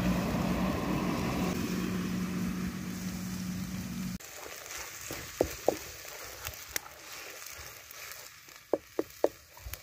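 Curry paste frying faintly in a steel wok over a wood fire, with several sharp taps of a spoon and a wooden spatula against a glass jar and the wok. Before that, a steady low hum cuts off suddenly about four seconds in.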